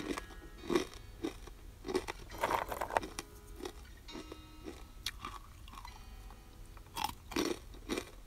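Crispy fried chicken-feet skin chicharon crunching in a string of irregular sharp crunches, about one every half second to second. It is still crunchy after five days in a sealed container.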